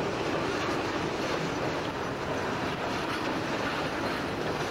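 Mixed freight train of covered hoppers and boxcars rolling by, a steady noise of wheels on rail with no distinct clicks.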